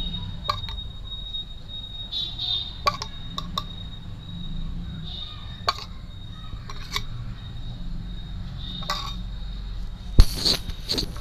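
Metal spoon clinking and tapping against a plate and the puris as curd is spooned on: scattered light clicks, with a sharp, loud knock near the end.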